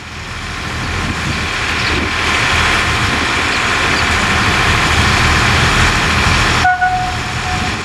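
Diesel locomotive engine running under power, growing louder over the first two seconds and then holding steady with a deep rumble and hiss. It cuts off abruptly near the end, and a short steady high tone follows.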